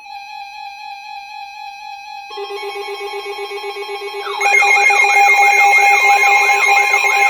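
Electronic alarm tones building up in layers: a steady tone, joined about two seconds in by a lower, fast-pulsing tone, then about four seconds in by a much louder warbling siren-like sweep rising and falling a little over twice a second.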